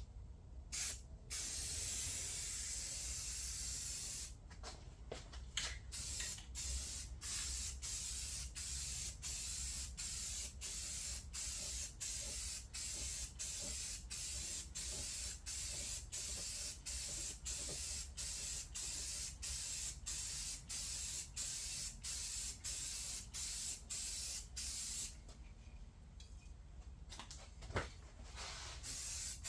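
Rust-Oleum paint being sprayed on as a finish coat over primer: a steady spray hiss beginning about a second in, then a long run of short hisses broken by brief gaps about twice a second as the sprayer makes pass after pass. Near the end the spraying stops for a few seconds, a sharp click sounds, and the hiss starts again.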